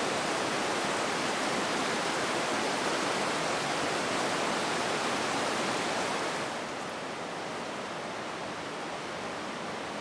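Shallow, fast river water rushing steadily over stones. About two-thirds of the way through it drops a little quieter and duller.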